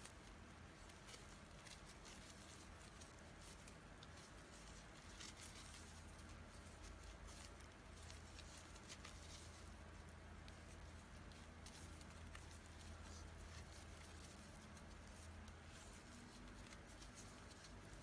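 Faint crinkly rustling and small irregular ticks of raffia yarn being pulled through stitches with a crochet hook, over a low steady hum.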